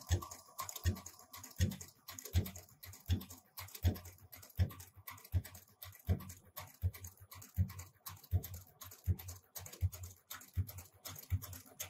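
HighTex 204-370PRO post-bed twin-needle sewing machine sewing leather slowly, each stitch giving a low knock about every three-quarters of a second, with fainter clicks between.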